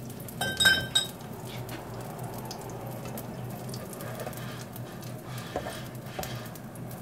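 Pancake batter sizzling softly in a non-stick frying pan. About half a second in there is a ringing clink as a kitchen utensil is picked up, and a few light taps come later as a spatula works at the pancake's edge.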